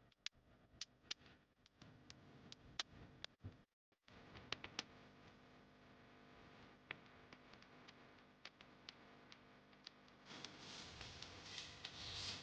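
Near silence: room tone with faint, scattered sharp clicks and ticks, and a faint hiss that rises from about ten seconds in.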